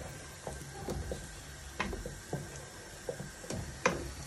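Spoon clinking and knocking against the side of a stainless steel pot while stirring soup: about eight irregular clicks, the sharpest near the end.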